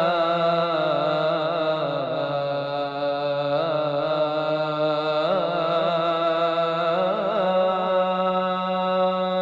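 A male voice singing an ibtihal, drawing one vowel out in a long melismatic ornament that turns and wavers in pitch. Under it a steady drone note is held throughout.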